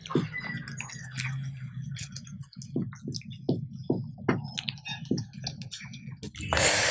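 Close-up chewing of a soft stuffed naan with chana masala filling: small wet mouth clicks about twice a second. A loud hissing burst comes near the end.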